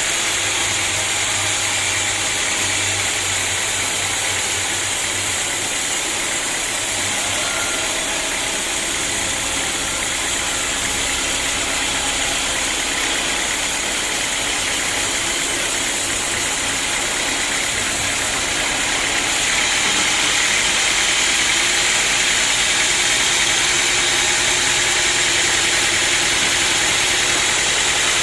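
Sawmill machinery running steadily with a dense, hissing mechanical noise, growing slightly louder about two-thirds of the way through.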